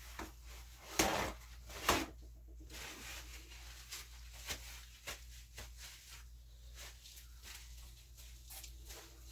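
Paper towel being handled: two short rustling swishes about a second apart, then light scattered rustles and small taps.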